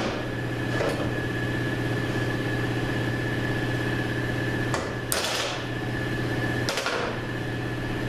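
Ball-peen hammer striking a steel punch set on the riveted piston of a Mercedes 722.3 K2 clutch drum, driving the piston out: a light knock about a second in, then a few sharp ringing metal blows around five and seven seconds in. A steady hum runs underneath.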